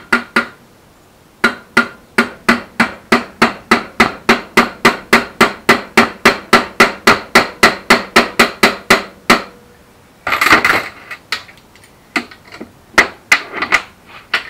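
Metal hammer taps on a selector shaft in a Reliant Robin four-synchro gearbox casing. About a second in, a quick even run of sharp taps starts, around four a second for some eight seconds. A brief metallic rattle comes about ten seconds in, then a few more taps near the end.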